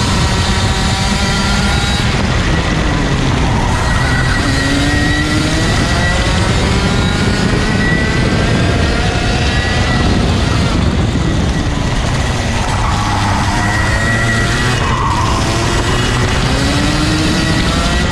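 Racing kart's 125cc two-stroke TaG engine heard onboard, its pitch rising and falling as it revs up along the straights and drops off into the corners.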